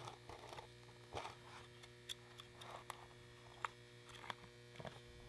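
Near silence: a faint steady electrical hum with about six light clicks and taps from the fog light and its plastic mounting bracket being handled while the coil spring is fitted.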